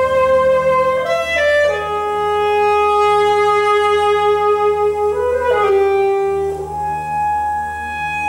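Solo saxophone playing long held notes, stepping slowly between a few pitches: a low note held for about three seconds, a brief turn upward, then a higher note held through the end.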